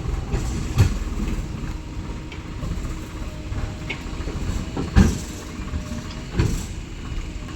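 Heavy machinery running with a steady low rumble, broken by a few sharp clanks, the loudest about five seconds in.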